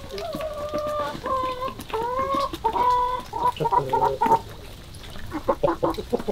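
Chickens calling: a string of drawn-out, pitched calls over the first three seconds or so, then quicker short notes, and a run of short clucks near the end.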